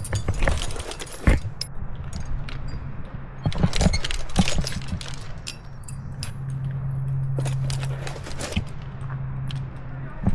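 Metal climbing gear, carabiners and cams on a harness rack, clinking and jangling in irregular bursts of sharp clicks as the climber moves.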